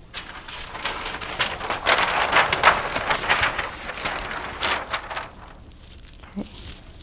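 Large flip-chart paper sheets being lifted and turned over on an easel, a crackling rustle of stiff paper that builds, peaks in the middle and dies away about five seconds in.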